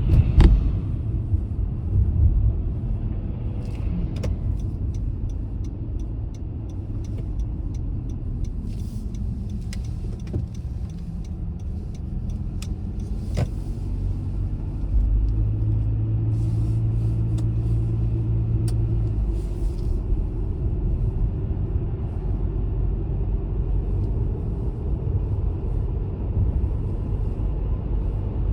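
Car driving: a steady low rumble of engine and tyres, with scattered sharp clicks and knocks. About halfway through, a steadier low hum holds for a few seconds.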